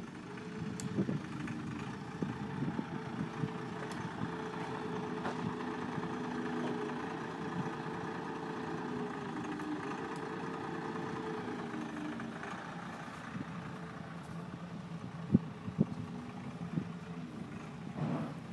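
Heavy equipment engine idling with a steady hum whose pitch wavers slightly. A few sharp metallic knocks come near the end.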